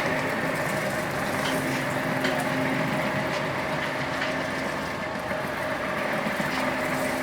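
Concrete floor grinding machine running steadily as it is worked over the floor: a constant motor hum under dense grinding noise.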